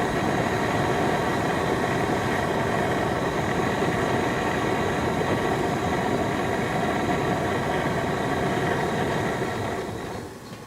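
An engine running steadily at an even speed, fading out about a second before the end.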